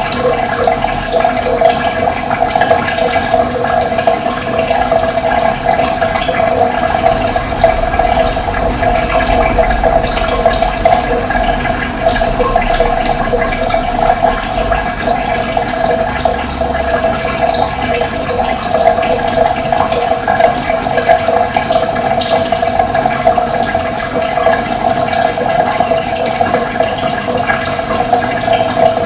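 Running water rushing steadily, with short high bird chirps scattered over it.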